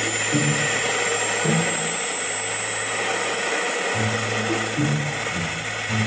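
Helicopter turbine running: a constant rushing hiss with a high, steady whine that slowly rises in pitch as the engine spools. Music plays underneath.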